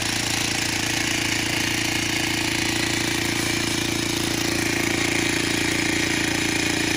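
Electric demolition hammer running steadily with rapid, even blows as it drives a steel earth rod into the ground.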